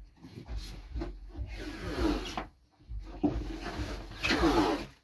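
Packing tape being pulled off its roll in rasping screeches and pressed onto a large cardboard box, with cardboard rubbing and rustling under the hands. The two longest screeches come about two seconds in and near the end.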